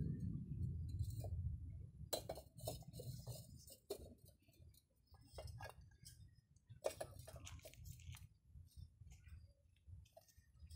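Scattered light clinks and knocks of hard parts being handled, after a low rumble that dies away about two seconds in.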